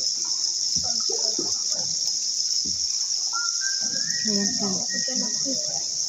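A steady high-pitched hiss, with low indistinct voices of people talking at times. A thin whistle-like tone steps up in pitch near the middle.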